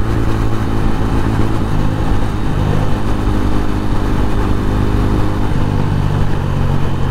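Motorcycle engine running while riding, its note shifting a few times with throttle, over steady wind and road noise.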